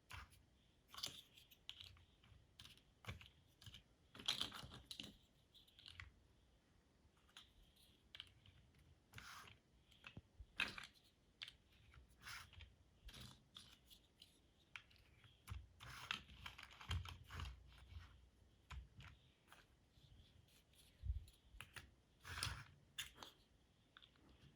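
LEGO bricks being handled and snapped together: irregular small plastic clicks and rustles, some a little louder than others.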